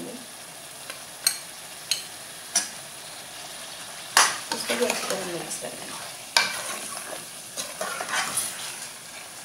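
Mutton pieces sizzling in oil in an aluminium pressure cooker while a steel ladle stirs and scrapes them, browning the meat with the freshly added spices. Sharp knocks of the ladle against the pot, the loudest about four seconds in and again about six seconds in.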